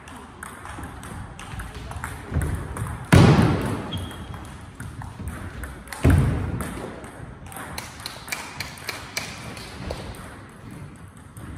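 Table tennis rally: the ball clicks sharply off rackets and table, ringing in a large hall. Two much louder sounds about three seconds apart stand out, the first about three seconds in.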